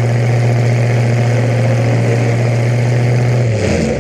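Demolition derby car engine running at steady, held revs, which drop away near the end.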